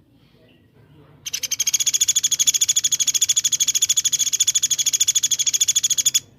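Songbird giving a rapid 'tembakan' call: a long run of identical high, sharp notes repeated very fast and evenly. It starts about a second in, lasts about five seconds and cuts off abruptly.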